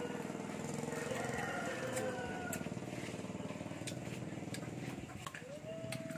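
A steady engine-like hum, such as a motor running nearby, with scattered sharp clicks over it.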